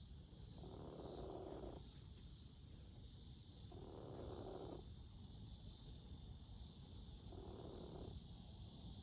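A chicken snoring in its sleep: three slow, breathy snores, about three seconds apart.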